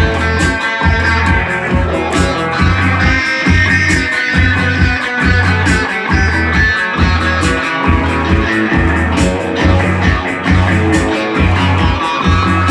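A band playing an instrumental rock piece live at rehearsal: electric guitar over bass with a steady low pulse.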